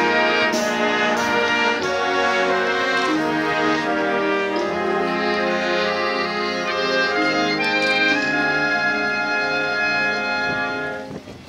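A high-school wind band playing, with saxophones and brass holding sustained chords. The band cuts off together about a second before the end.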